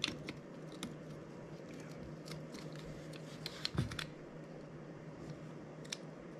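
Light clicks and taps of a metal heat sink and an M.2-to-PCIe adapter card being handled and pressed together, with one heavier knock a little before halfway, over a steady low hum.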